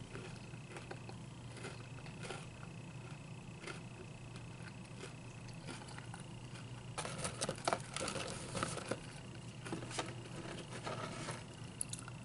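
Faint chewing and mouth sounds, with clusters of soft clicks and crackles about seven to nine seconds in and again around ten to eleven seconds, over a faint steady hum.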